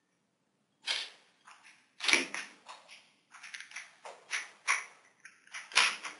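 Blue TPU-and-plastic bumper frame being pressed onto an iPhone 4: a run of short plastic scrapes and clicks against the phone's edge, starting about a second in, with two louder knocks, one about two seconds in and one near the end.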